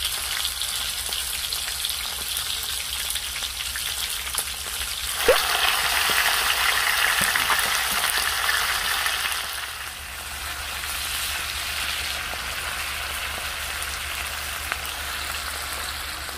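Pork belly sizzling in its own fat on a round griddle pan, with kimchi cooking in the middle. A sharp clack comes about five seconds in, after which the sizzle grows louder, then it eases off near ten seconds.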